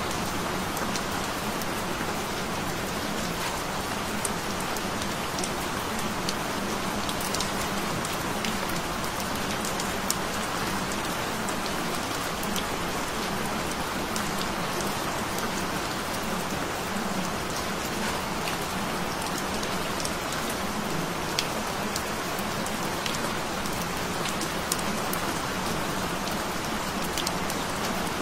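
Steady rain falling, an even hiss with scattered sharp drop clicks.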